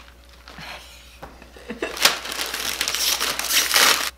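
A snack bag of rice crisps crinkling as it is handled and pulled open. Faint crackles give way to a louder, dense crinkling about halfway through.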